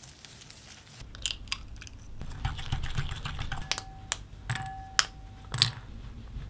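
Kitchen utensils and pieces of white chocolate clicking and tapping against a glass mixing bowl, a series of sharp clicks with a scraping stretch in the middle and two strikes that leave the bowl ringing briefly.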